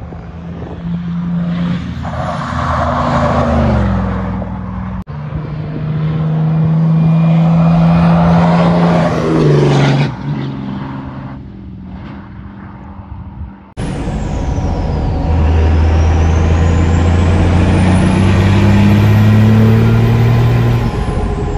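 A 4th-gen Ram's Cummins inline-six turbo diesel accelerating hard away down the road, its exhaust note rising in pitch and then easing off, heard in two takes about five seconds in. About fourteen seconds in it changes to inside a moving pickup's cab, where a diesel engine pulls steadily under load with a thin high whistle gliding up and down.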